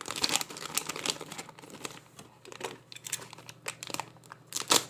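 Memory-kit packaging crinkling and rustling as it is handled, in a run of irregular crackles.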